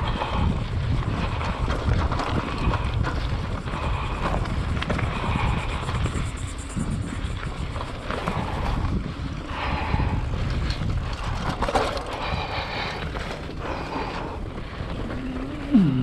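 Wind buffeting the microphone while riding a mountain bike down a dirt trail, a steady low rushing with bike and tyre noise under it. A short falling sound stands out near the end.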